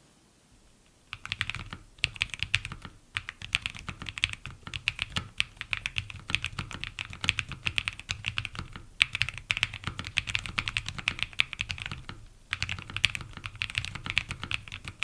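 Typing on a LEOBOG K81 mechanical keyboard with factory-lubed LEOBOG Crystal Ice linear switches in a gasket-mounted case: a fast, even stream of keystrokes that starts about a second in, with a brief pause after about twelve seconds.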